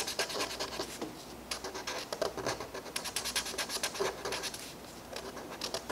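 Felt-tip marker scratching on paper in quick back-and-forth strokes as it fills in small shapes, in short runs with brief pauses.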